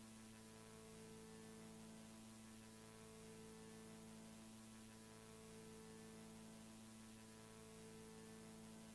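Near silence: a faint steady hum with light hiss.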